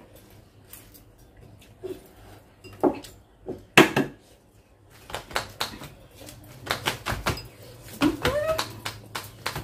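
Hot hard-boiled eggs being peeled by hand: shells crackling in a run of small clicks, with one louder sharp sound just before halfway. Near the end come short rising vocal squeals and hums from a mouth full of hot egg.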